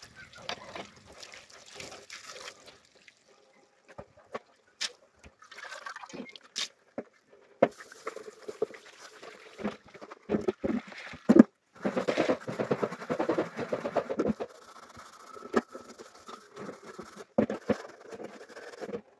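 Dishes and pots being washed under a running tap: water splashing and trickling, with irregular knocks and clatter of the vessels, busiest about twelve to fourteen seconds in.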